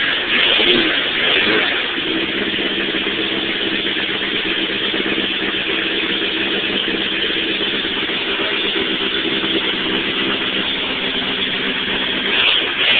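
Four-cylinder car engine breathing through an open 4-into-1 header with no muffler, running loud with a deep rumble. It is uneven for the first two seconds, then holds a steady note until near the end, where it changes again.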